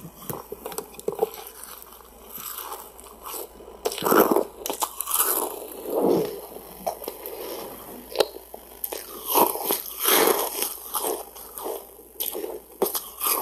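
Ice being bitten and crunched right at a microphone, in irregular bursts of crunching with the loudest about four seconds in.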